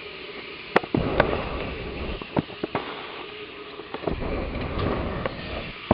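Handling noise from a handheld camera being swung round: a scatter of sharp clicks and knocks with two stretches of low rumbling, over a steady background hiss.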